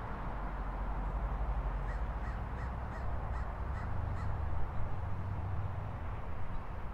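A crow cawing: a quick run of about seven short caws over two seconds, starting about two seconds in. Under it is a steady low rumble of city traffic.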